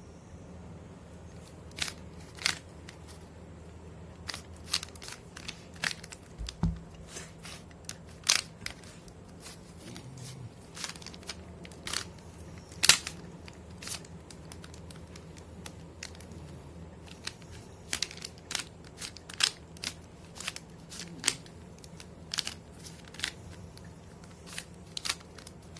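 3×3 Rubik's cube being turned quickly by hand: a stream of irregular plastic clicks and snaps from the layers, several a second with some louder snaps. The cube is stiff, which the solver calls very tight and puts down to its age.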